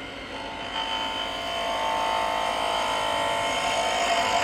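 Spindle gouge cutting a spinning wooden spindle on a wood lathe, rolling a bead: a steady whine and hiss of the cut over the running lathe, getting louder from about half a second in.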